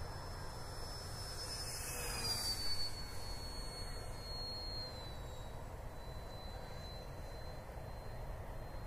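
Durafly Spitfire Mk 24 RC model's electric motor and propeller whining in flight as it passes by. The whine is loudest about two and a half seconds in, and its pitch drops as the plane goes past, then holds lower.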